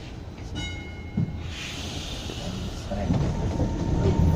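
Inside a W6 class Melbourne tram: a short high tone sounds, then a hiss of air about a second and a half in, then the tram's rumble builds as it moves off from the stop.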